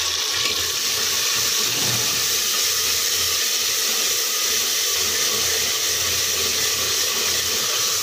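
Onions, tomatoes and ginger-garlic-green chilli paste frying in hot mustard oil in an aluminium pressure cooker, with a steady sizzle.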